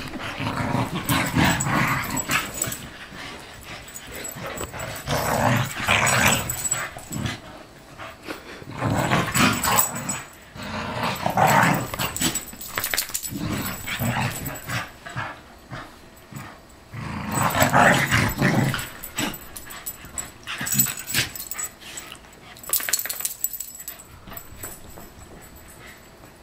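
Two dogs, a corgi and a black-and-white dog, growling as they play-wrestle, in bouts of a few seconds that die down near the end.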